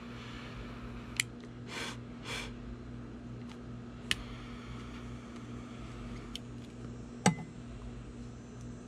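Cigar being lit with a butane torch lighter: sharp clicks about a second in, about four seconds in and, loudest, about seven seconds in, with two short hisses around two seconds in, over a steady low hum.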